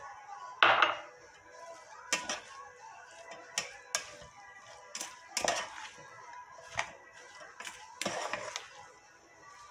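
Black plastic slotted spatula mixing chopped cauliflower, onion and green onion in a stainless steel pot, knocking and scraping against the metal sides about eight times at uneven intervals.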